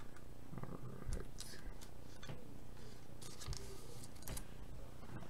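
Faint scratchy rustling and light plastic clicks of trading cards and plastic card sleeves being handled, a few brief scrapes over a low steady room hum.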